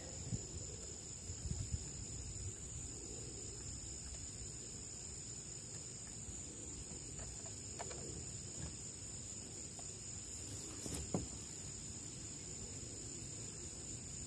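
A steady, high-pitched chorus of crickets, with a few faint knocks as the outboard motor is handled.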